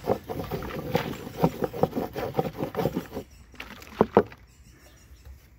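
Plastic coffee canister being shaken and its snap-on lid pressed and worked by hand, with gas from a baking soda and vinegar reaction inside: a fast, irregular clatter of knocks and clicks for about three seconds, then two sharp clicks about four seconds in.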